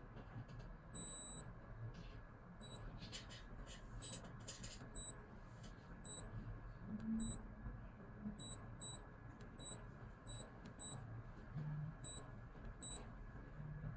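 Digital watch beeping: a string of short, high single beeps, one after another at an uneven pace of roughly one to two a second, as its buttons are pressed to step through settings. A few faint clicks come between beeps a few seconds in.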